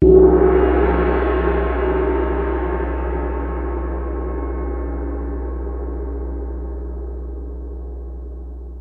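A single gong-like strike that rings on over a deep, steady low hum, slowly fading away.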